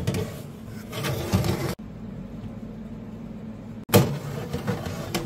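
Kitchen handling noise as a metal baking tray goes into an oven: clatter and scraping, then a sharp knock about four seconds in.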